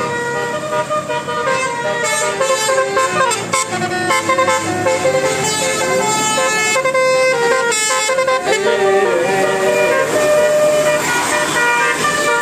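Several vehicle horns sounding at different pitches, overlapping and changing note, over traffic.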